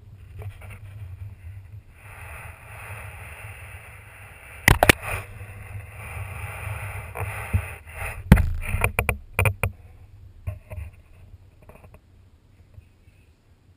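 Knocks and rubbing on a GoPro camera held close to a cat: a rubbing hiss against the camera, two sharp knocks about five seconds in and a flurry of knocks around eight to ten seconds, as the cat bats the camera with his paw.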